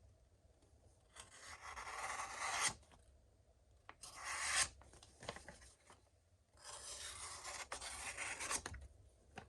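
A sheet of paper being sliced by a Hogue Deka folding knife's sharp CPM 20CV wharncliffe blade, making a scratchy, rasping rustle. There are three cuts: one about a second in, a short one about four seconds in, and a longer one near the end.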